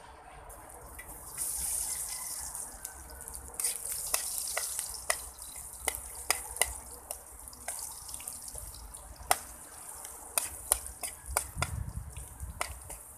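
Rice frying in a wok: a steady sizzle that swells about a second in, with a spatula scraping and clicking against the wok at irregular moments.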